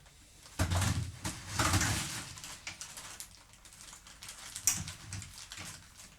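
Things being handled and set down on a workshop bench and floor: a run of scraping and clattering about half a second in, lasting a second and a half, then lighter clicks and a sharp knock a little before the five-second mark.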